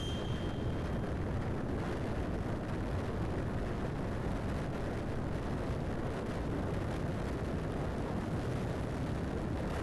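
Steady wind rush buffeting the microphone while riding a Bajaj Pulsar NS200 single-cylinder motorcycle at cruising speed, mixed with its engine and tyre noise on the road. A brief faint high tone sounds in the first second.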